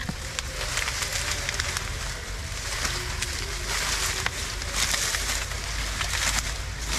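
Sugarcane being snapped off by hand in a standing cane field: the dry leaves rustle and thrash, and sharp cracks and snaps come at irregular moments throughout.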